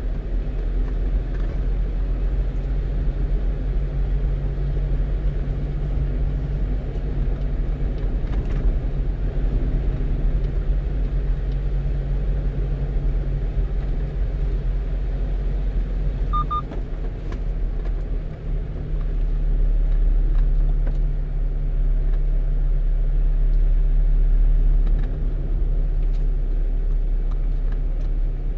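A 1-ton truck driving on the road, with steady engine and tyre drone heard from inside the cab, getting louder for a few seconds past the middle. A short, high double beep sounds a little over halfway through.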